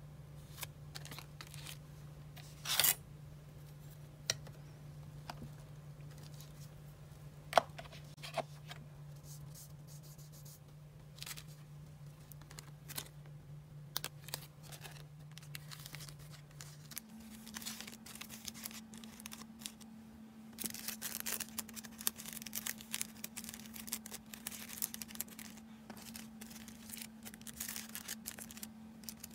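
Small clear plastic bags and paper die-cuts being handled, crinkling and rustling, with scattered light clicks and taps; the crinkling grows denser about two-thirds of the way through. A faint steady low hum runs underneath.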